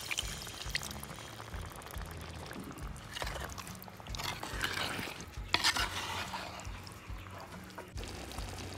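A spoon stirring wet chicken curry in a clay pot: a few sloshing, scraping strokes from about three to six seconds in, with a sharp knock about halfway through.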